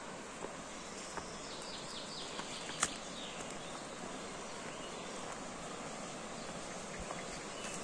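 Steady outdoor hiss with a few faint, short bird chirps about two to three seconds in, and scattered light clicks of footsteps on the path, the sharpest about three seconds in.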